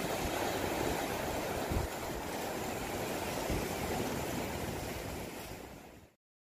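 Sea surf washing over shore rocks, a steady rush of breaking waves that fades out near the end.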